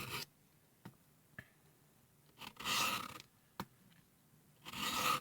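Knife blade drawn along the fine diamond plate of a Work Sharp Guided Field Sharpener: a gritty scrape every two and a half seconds or so, two full strokes after the end of another, with light clicks between strokes.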